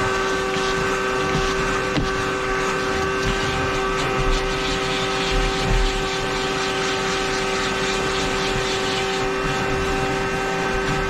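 Steady mechanical hum holding several fixed pitches over a hiss, with a few faint knocks.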